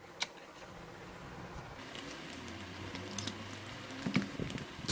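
Soft handling noise of pliers and plastic stand-fan parts: scattered light clicks and rustling, with one sharp click just after the start.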